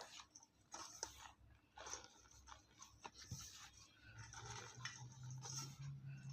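A bar of sky-blue gym chalk being crushed: faint, irregular crunching and crumbling crackles. A low steady hum comes in about four seconds in.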